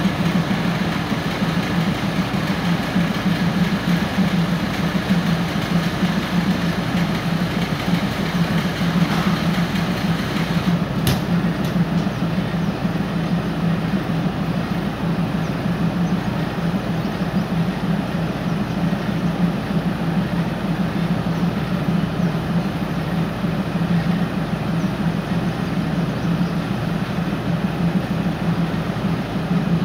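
Diesel railcar's engine idling steadily after starting, a constant low drone. One sharp click about eleven seconds in.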